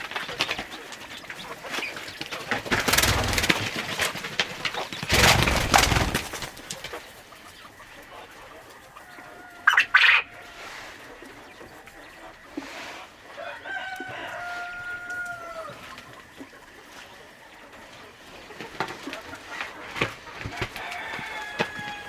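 Chickens calling on a farm, including one drawn-out call of about two seconds and a falling call near the end. A few loud, noisy stretches come in the first six seconds, and a brief sharp squawk about ten seconds in.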